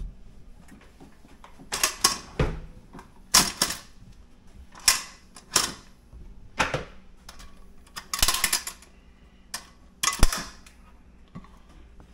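Aluminium CanCooker steam pot's lid clamps being unlatched and its lid handled: about a dozen sharp metal clicks and clanks, some in quick pairs, with a denser rattle about eight seconds in.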